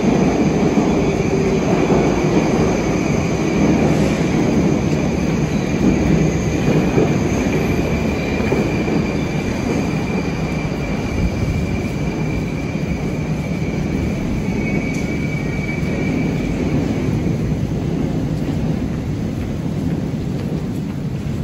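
Moscow metro train rumbling through the station, with a faint high steady whine over the low rumble that eases off a little towards the end.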